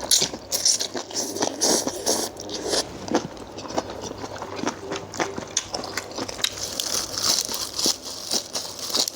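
A person chewing crunchy food close to the microphone: a steady run of crisp, crackly crunches and bites.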